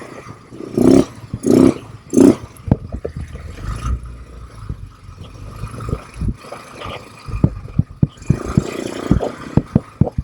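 ATV running on a rough dirt trail. Its engine hums under many sharp knocks and rattles from the jolting ride, with three loud buffets in the first couple of seconds.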